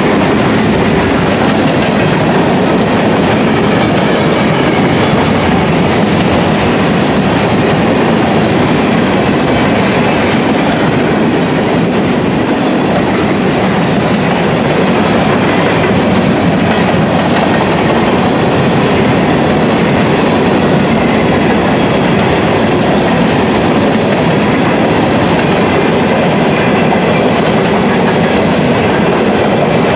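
Covered grain hopper cars of a freight train rolling past, a steady rumble of steel wheels on the rails.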